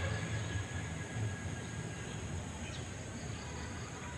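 Quiet outdoor background: a low rumble under a faint, steady high-pitched hum.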